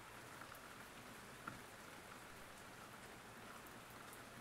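Faint, steady rain: an even hiss of rainfall with a soft tick of a drop now and then, the clearest about a second and a half in.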